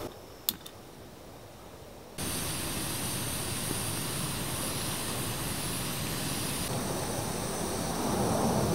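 Steady rushing of a jet aircraft passing high overhead, cutting in abruptly about two seconds in after a quiet stretch with a single sharp click, and growing slightly louder near the end.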